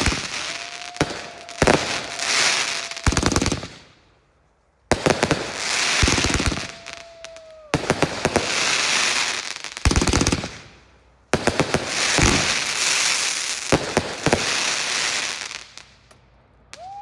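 Fireworks finale: four rapid volleys of bangs and crackling, each a few seconds long, with short quiet gaps between them.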